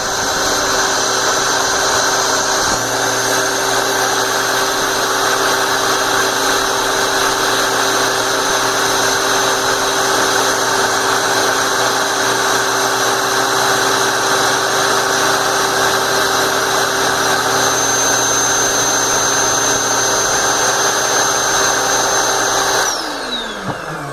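Electric air-mattress inflator running steadily and loudly, its air blast driving a fidget spinner, with a steady high whine. It is switched off near the end and the whine falls away in pitch as it winds down.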